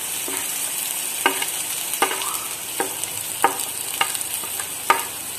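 Sliced onions sizzling in oil in an aluminium pot while a wooden spatula stirs them, scraping and knocking against the pot about once or twice a second, as chilli powder is mixed in.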